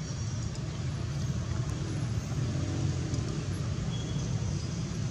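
Steady low background rumble with an even hiss, the kind of outdoor noise bed that distant road traffic or wind on the microphone gives; no monkey calls stand out.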